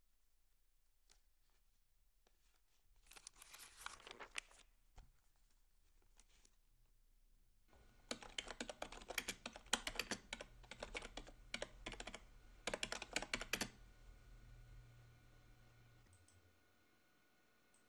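Typing on a desktop computer keyboard: a short burst of keystrokes about three seconds in, then a longer run of rapid typing from about eight seconds until nearly fourteen, with a brief pause in it.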